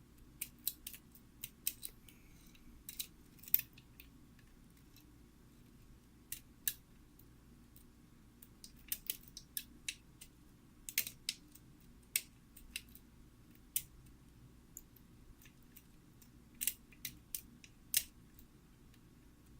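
Light, sharp metallic clicks at irregular intervals from a pick working the pins of a five-pin Kwikset-style pin tumbler lock during single-pin picking, under tension from a top-of-keyway tension bar.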